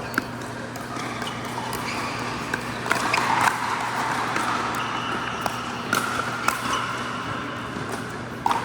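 Pickleball paddles hitting the hard plastic ball: sharp pops at irregular intervals, several close together around the middle, over the steady background din of an indoor court.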